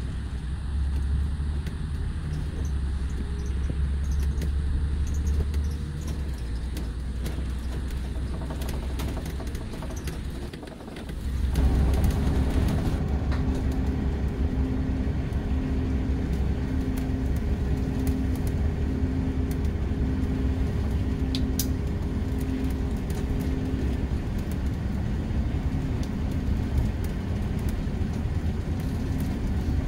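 Mercedes-Benz O-500RSD coach's diesel engine running with a steady low rumble. About eleven seconds in it dips briefly and comes back louder, joined by a repeating tone that pulses about once a second.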